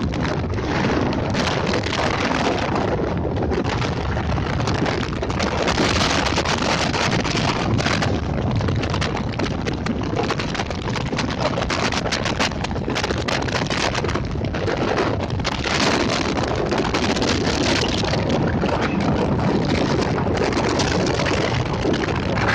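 Small passenger motor boat under way, its engine running steadily, with heavy wind buffeting the microphone.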